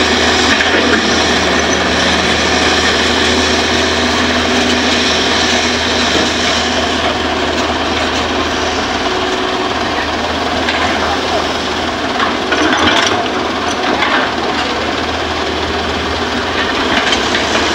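Diesel engines of a Hitachi hydraulic excavator and a dump truck running steadily close by as the excavator loads soil, with a few short clatters in the second half.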